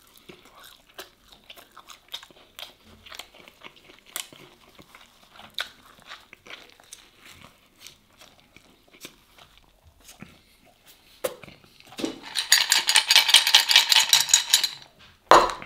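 Close-up chewing and crunching of a baked cheesy sujuk sandwich, a stream of small crisp clicks. About twelve seconds in, ice cubes rattle loudly in a glass for a couple of seconds, followed by one sharp knock.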